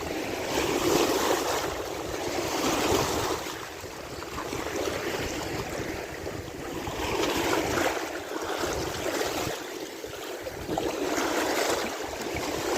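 Small waves washing against the face of a dam, swelling and easing about every two seconds.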